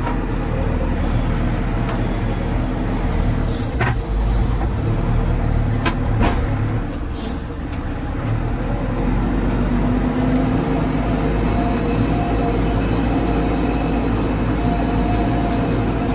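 JCB 4CX backhoe loader's diesel engine running steadily under load as the front bucket works, with a few brief hisses about four and seven seconds in.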